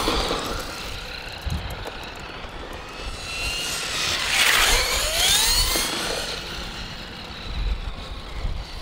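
Electric RC cars' motors whining as they drive on the court, their pitch rising and falling with speed. About four seconds in, one car passes close and its whine slides down in pitch, the loudest moment. Wind rumbles on the microphone.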